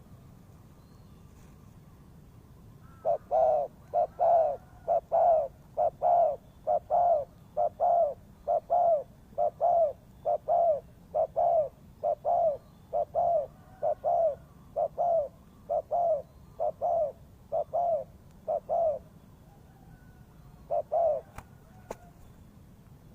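Spotted dove cooing: a long run of evenly spaced coos at about two a second, which stops a few seconds before the end, followed by one more coo.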